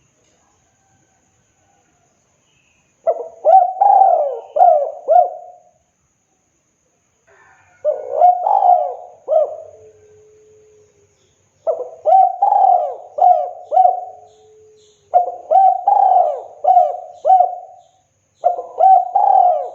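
Spotted dove (tekukur) cooing its song: after a silent start, about five phrases of several low coos each, separated by short pauses.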